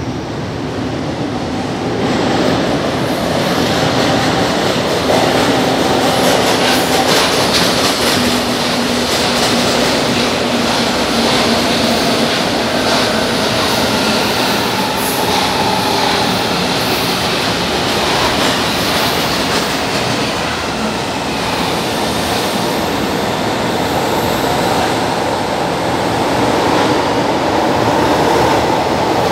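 São Paulo Metro trains moving along the platform of an underground station: a loud, steady rumble of steel wheels on the rails and running gear, rising about two seconds in as a train picks up speed past the platform, with faint drawn-out squeals from the wheels.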